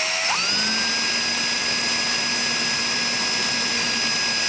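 Power drill with a small twist bit drilling a pilot hole through a screw hole of a metal piano hinge into the wood of the chest. Its motor whine climbs in pitch just after the start as the drill speeds up, then holds steady.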